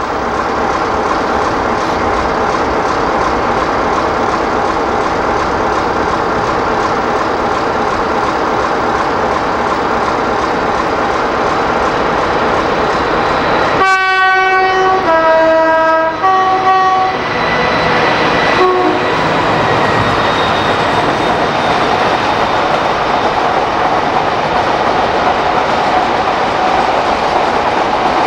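A BR Class 60 Mirrlees-engined diesel locomotive running with its train, a steady rumble with rail clatter; about halfway through it sounds its two-tone horn for about three seconds, high, low, then high again.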